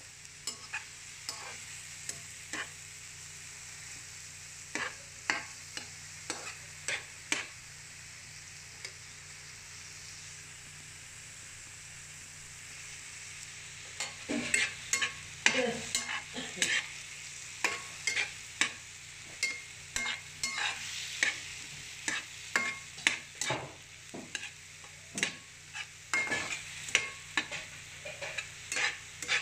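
Diced tomato, onion and garlic sizzling in olive oil in a frying pan, stirred with a metal slotted spatula that clicks and scrapes against the pan. The clicks are scattered at first and come thick and fast from about halfway on.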